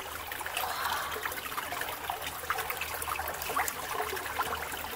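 Water trickling into a small rocky pool, with small splashes and drips as a hand reaches into the shallow water.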